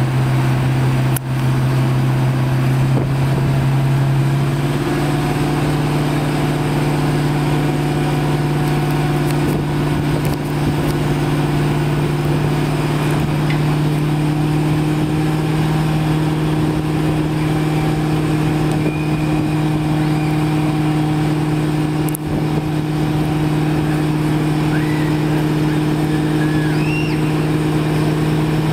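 Fire engine's motor running steadily at raised speed, with a constant low hum whose pitch steps up slightly about four to five seconds in.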